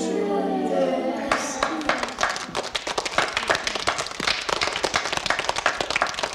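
A long, held vocal note that dies away about a second in, followed by a room full of schoolchildren clapping, quick and uneven.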